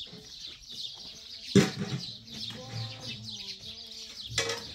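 Chickens clucking in short wavering calls, with one sharp knock about one and a half seconds in and a weaker one near the end.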